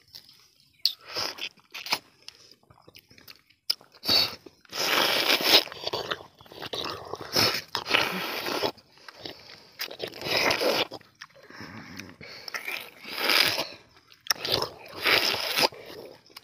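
Two people eating tender palmyra fruit (ice apple, nungu), sucking and biting the soft jelly-like kernels straight from the cut fruit: a string of irregular slurps and bites, some lasting over a second, with short pauses between.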